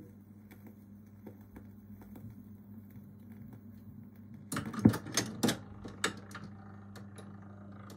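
Pye Black Box record player at the end of a 78 rpm record: the stylus ticks faintly and regularly in the run-out groove over a low steady hum, then from about halfway the autochanger mechanism clicks and clunks as the tone arm lifts and swings back out towards its rest.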